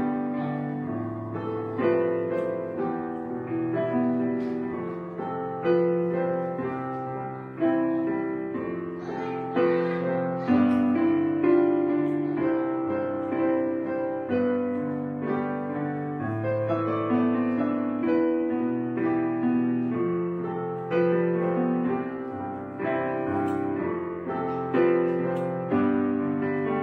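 Soft background piano music: chords struck every second or two and left to fade.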